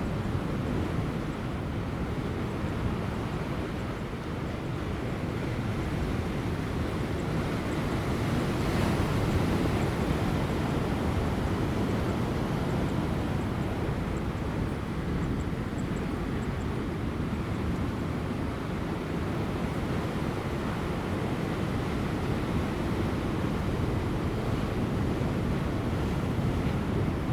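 Large ocean waves breaking on offshore rocks near high tide: a steady rush of surf that swells to its loudest about eight to ten seconds in, with light wind.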